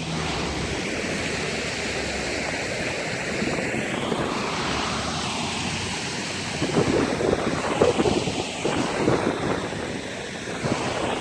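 Loud, steady rushing noise whose tone slowly shifts up and down, turning rougher and choppier for a few seconds in the second half.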